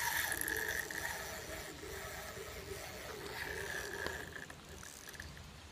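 A fishing reel being wound in two short spells, giving a faint mechanical whir as line is taken in on a hooked sturgeon.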